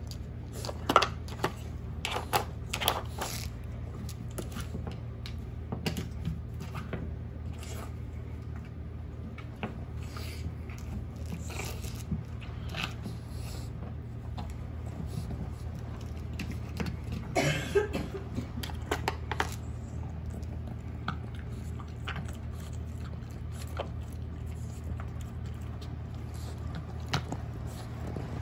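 Scattered clicks and knocks of hard plastic as a Boston Terrier puppy noses and paws at the bone-shaped covers of a treat puzzle, loudest about a second in and around the middle, with a low steady hum underneath.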